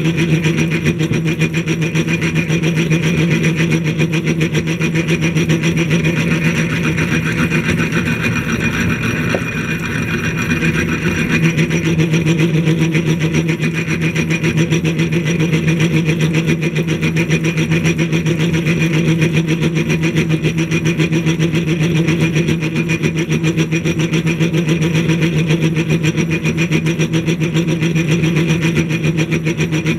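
Motor-driven A.D. Vance No. 12 blacksmith's drill press running steadily with a low hum, its bit cutting into steel as it is fed down by hand without the automatic feed. The sound eases briefly about ten seconds in, then picks up again.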